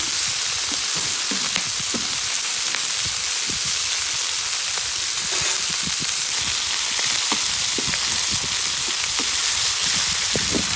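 Meat and peppers frying in a large paella pan: a steady sizzle with scattered light clicks and low knocks.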